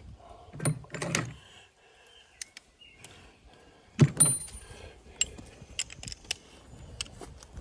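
Metal hand tools being handled, clanking and clinking: a couple of knocks about a second in, a sharp ringing clank about four seconds in, then light scattered clicks.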